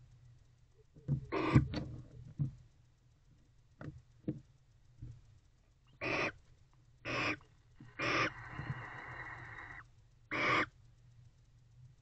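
Female barn owl calling in the nest box: four short raspy calls about a second apart, with a longer steady hiss between the third and fourth. About a second in there is a louder scuffle of clicks and a rasp.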